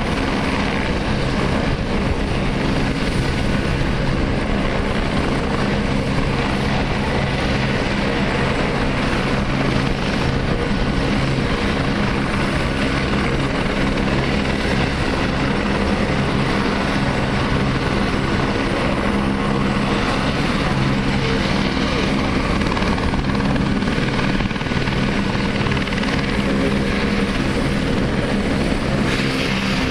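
Light turbine helicopter running steadily at close range as it lands and then turns its rotor on the pad: a continuous engine whine with rotor noise.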